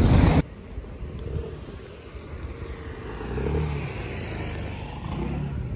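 A loud stretch of sound cuts off abruptly about half a second in. After it comes steady outdoor traffic noise, with a motor vehicle's engine swelling and fading as it passes about three and a half seconds in.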